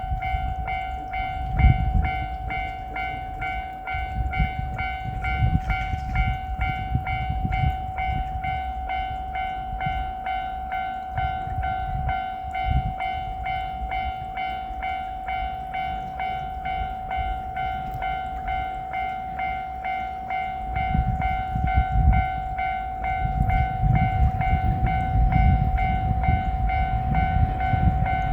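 Japanese level-crossing alarm ringing steadily, a pitched electronic ding repeated at an even rhythm. Under it is a low rumble that grows louder over the last several seconds.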